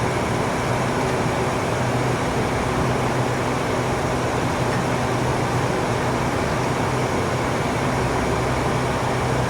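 A motor-driven machine running steadily: an even whirring noise with a low hum.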